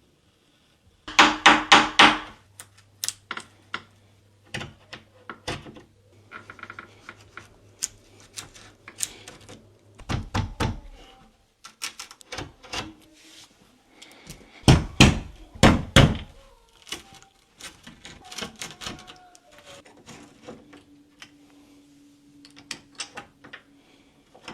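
Doorknob hardware being worked on: repeated sharp clicks, knocks and clatters of metal and wood. Louder clusters of rapid knocks come about a second in, around ten seconds in and around fifteen seconds in. A faint low hum runs under the first part.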